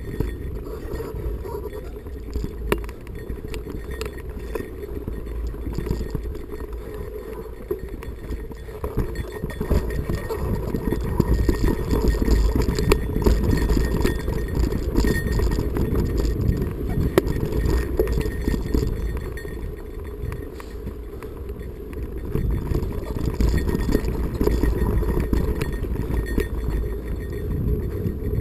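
A mountain bike climbing rocky singletrack, heard from a camera carried by the rider: a steady low rumble of wind and handling on the microphone, with many small clinks and clicks of the bike rattling over rocks, louder in the middle and again near the end.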